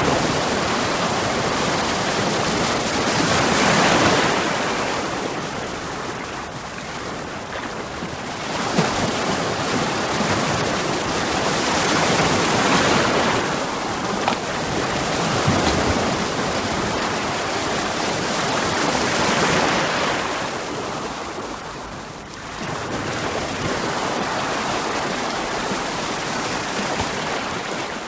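Ocean waves breaking on rocks: a continuous wash of surf that swells into a louder crash every three to four seconds.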